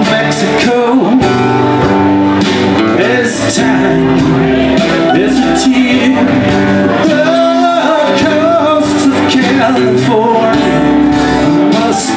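A live rock band playing loudly: strummed acoustic guitar with electric guitar, keyboard, saxophone and drums.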